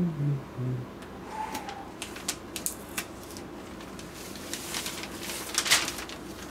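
Hands handling and turning a cardboard collector's figure box, with scattered light taps, clicks and scrapes against the box.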